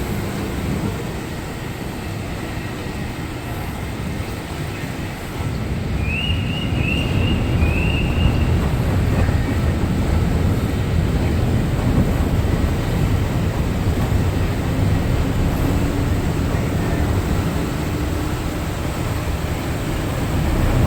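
A passenger ferry's engines running with a steady low rumble, which grows louder about five seconds in. Three short high rising chirps sound in quick succession a few seconds later.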